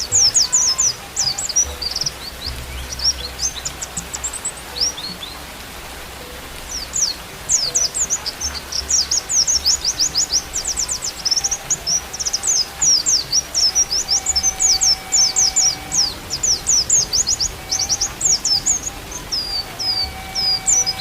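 A white-eye (pleci) singing a fast, high twittering song of quick downward-sweeping notes in long runs, breaking off for a moment about five seconds in. A faint flute plays long held notes underneath.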